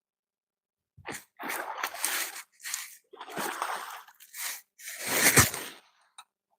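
Water splashing in a string of short, uneven bursts as a hooked carp thrashes at the surface near the bank; the loudest splash comes about five seconds in.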